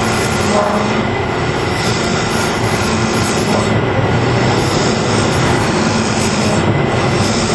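Carbide-insert mini rougher cutting into a spinning kiln-dried maple goblet blank on a wood lathe, hogging out bulk material: a steady rushing cutting noise with the lathe's hum underneath.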